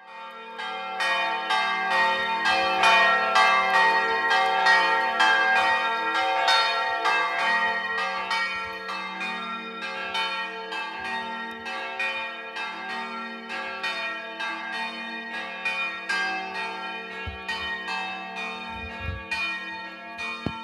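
Church bells of an Orthodox monastery ringing: several bells of different pitches struck in a rapid, continuous pattern of about three strokes a second, their tones ringing on over one another. The ringing is loudest in the first few seconds and slowly gets quieter.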